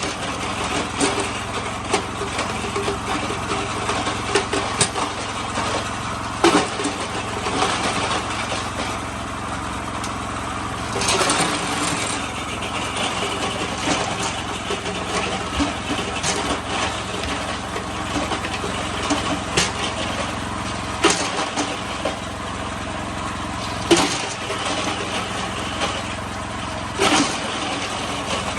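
Motor-driven ice crusher running smoothly with a steady hum, breaking ice into small pieces. Sharp cracks and knocks of ice breaking come irregularly every few seconds, the loudest about six, eleven, twenty-one, twenty-four and twenty-seven seconds in.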